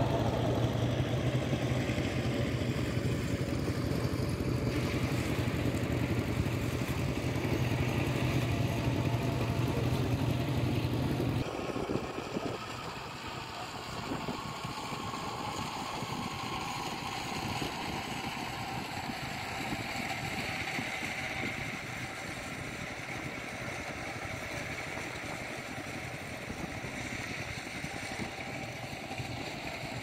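A steady low motor hum for about eleven seconds, which cuts off suddenly, leaving a quieter, even outdoor hiss.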